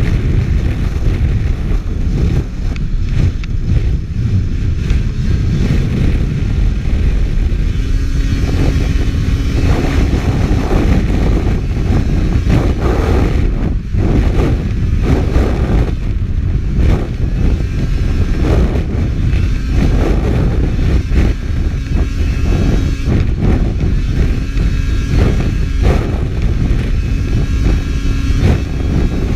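Race snowmobile running at speed across lake ice, heard from a GoPro on the sled: a loud, steady engine drone under heavy low rushing noise on the microphone.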